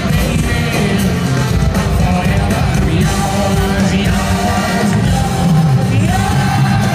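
A rock band playing live in an arena, full band with drums, bass and guitars, with singing and some yells from the crowd.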